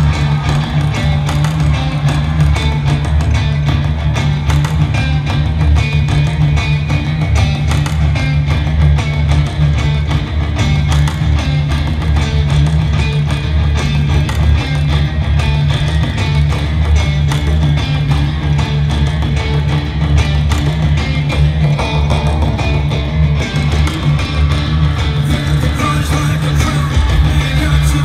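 Live rock band playing an instrumental passage on electric guitar, bass and drums, with a heavy low end.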